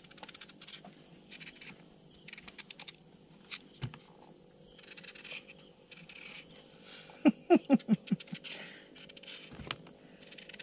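Night insects chirping steadily, with faint knife scraping as a green mango is peeled by hand. About seven seconds in there is a brief run of about six quick, loud pitched pulses.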